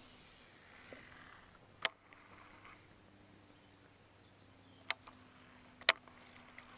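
A few sharp clicks: two loud ones about four seconds apart and two fainter ones, over a faint steady hum.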